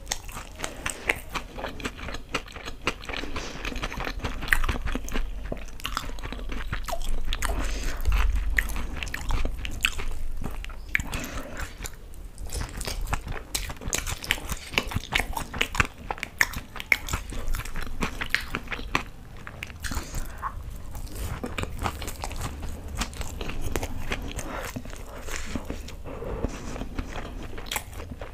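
Close-miked chewing and crunching of fried pakoras soaked in green chutney, with bites and a dense, irregular run of crunchy clicks.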